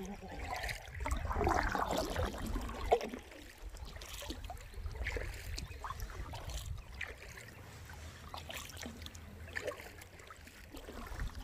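Double-bladed paddle strokes in calm river water as a solo canoe is paddled: blades dipping and pulling, with water dripping and trickling off them between strokes, louder in the first few seconds.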